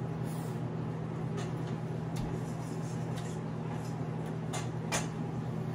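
People chewing crispy bánh xèo wrapped in lettuce: soft, scattered crunches and mouth sounds, with a sharper crunch about five seconds in, over a steady low hum.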